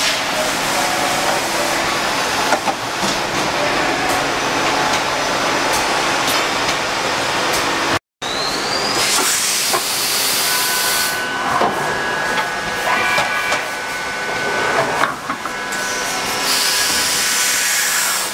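Matsuura RA-1F vertical machining center's automatic pallet changer cycling: a steady hiss of air at first, then bursts of hissing air, a motor whine and knocks as the swing arm moves the pallets.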